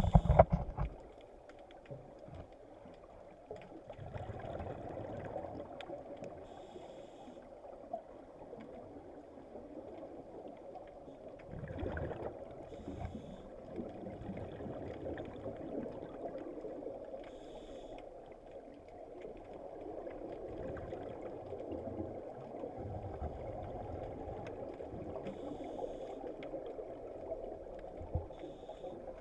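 Muffled underwater ambience picked up by a diving camera in its housing: a steady water rush, with short bubbling bursts every few seconds from scuba divers exhaling through their regulators. It opens with a loud knock.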